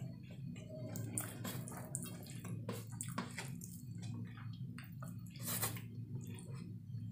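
Eating by hand: fingers scooping fried rice and noodles off a steel plate, with wet mouth sounds of chewing, as a string of irregular short clicks and squelches, the loudest about five and a half seconds in. A low steady hum runs underneath.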